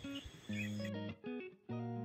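Background music: a plucked guitar playing separate notes, about two a second, with short gaps between them.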